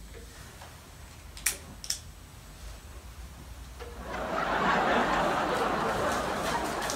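Two sharp clicks of a lighter about half a second apart, then from about four seconds in a louder stretch of dense, unpitched noise lasting about three seconds.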